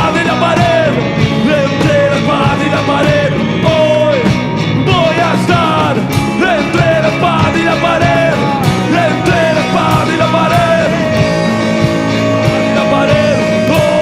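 Rock band playing live in an instrumental passage without lyrics: a bending, sliding lead melody over steady bass and drums.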